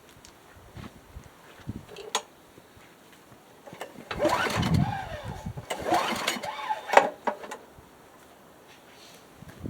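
Craftsman lawn mower being pull-started twice, its recoil starter and engine cranking in two short bursts with a rising and falling whir, not yet catching, on a first start attempt after a carburetor cleaning. A click about two seconds in.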